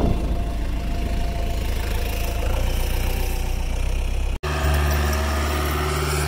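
A vehicle engine running with a steady low hum. About four seconds in, the sound cuts out for an instant and returns as a steadier, more even low drone.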